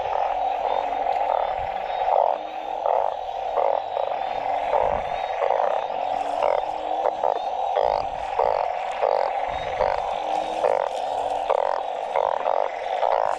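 Dense chorus of many frogs calling together, a steady pulsing din, with a lower short note repeating again and again beneath it. A few dull low thumps sound now and then.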